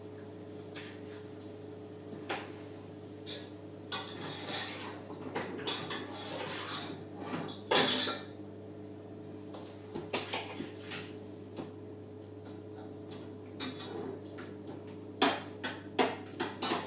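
Pots, pans and metal cutlery clinking and clattering on a kitchen counter in irregular knocks, the loudest clatter about halfway through and another run of knocks near the end. A steady low hum runs underneath.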